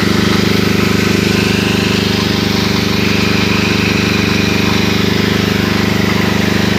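Agricultural drone's rotors spreading fertilizer granules: a loud, steady hum with a fast flutter.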